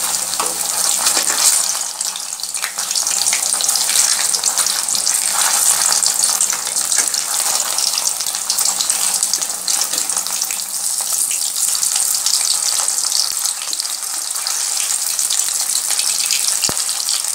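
Batter-coated stuffed kakrol (spiny gourd) halves deep-frying in mustard oil in a steel kadai: a steady sizzle with fine crackling. There are occasional clinks and scrapes of a metal spatula on the pan as the pieces are turned.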